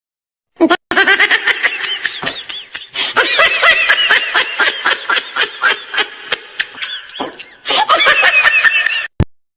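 Laughter sound effect: several voices laughing together in one long continuous stretch, starting after a moment of silence and dipping briefly about seven and a half seconds in.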